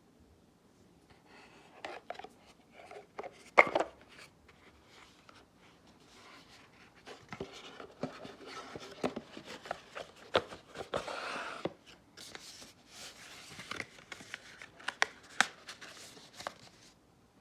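Hands handling perfume packaging: scattered light taps and clicks of box and bottle with short bursts of rustling, the longest about eleven seconds in.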